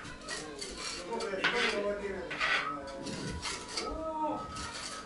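Masonry work on a brick stove: a trowel and bricks scraping and clinking against clay mortar in irregular strokes, with the two loudest scrapes about one and a half and two and a half seconds in.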